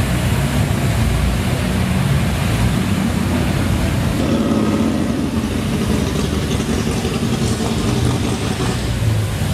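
Ford Super Duty dually pickup's engine running at low revs as the truck rolls slowly forward, a steady low rumble.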